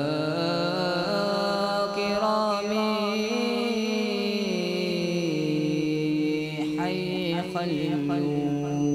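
Boys' voices singing an Arabic nasheed in unison into microphones, drawing out one long held phrase whose pitch slowly climbs, falls about five seconds in, then holds steady.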